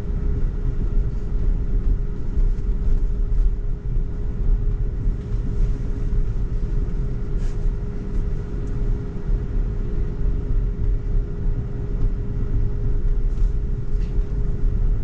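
Road and tyre rumble heard inside the cabin of a moving Tesla electric car, steady and low, with a faint steady hum above it.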